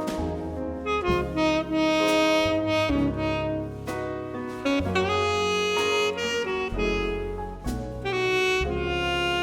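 Live jazz ballad with a saxophone playing long sustained melody notes over piano, double bass and drums, with soft cymbal strokes.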